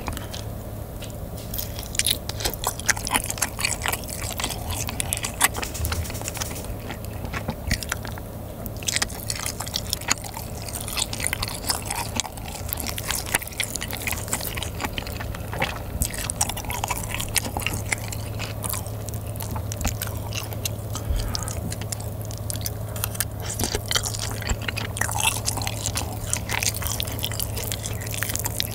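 Close-miked chewing and biting of saucy, spicy chicken: a dense run of short, wet mouth clicks and smacks, with the odd scrape of a fork against the bowl. A steady low hum runs underneath.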